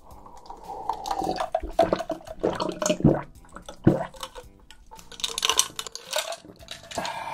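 Water being drunk from a plastic bottle in a series of uneven gulps, the water glugging in the bottle.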